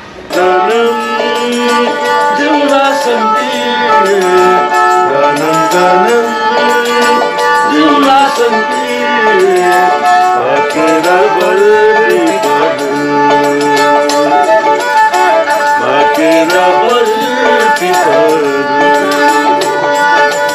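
Two Nepali sarangis, small bowed folk fiddles, played together in a folk tune, the melody sliding between notes over a steady held note. The music starts abruptly just after the start.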